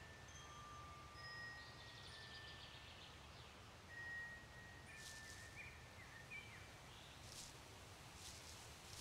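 Near silence: faint woodland ambience with a few thin, high, chime-like tones in the first half and short bird chirps in the second half.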